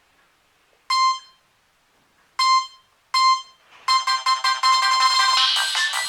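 Nokia 3220 ringtone played on a Nokia N73 phone's speaker: three single electronic beeps, then about four seconds in a fast synthesized melody that grows fuller near the end.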